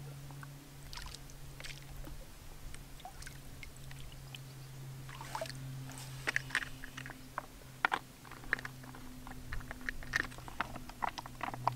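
Water splashing and dribbling in small irregular bursts as a plastic water bag for a Sawyer Mini filter is dipped into a lake and filled by hand, more often from about halfway through. A faint steady low hum runs underneath.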